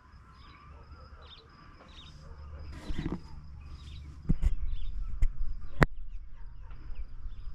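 Outdoor rural ambience: faint high chirping over a low rumble of wind on the microphone, which grows louder about four seconds in. A few sharp clicks come near the middle.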